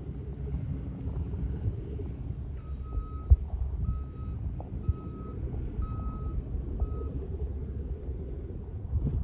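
A vehicle's reversing alarm beeping about five times, roughly once a second, over a low steady rumble. A single sharp thump about three seconds in is the loudest moment.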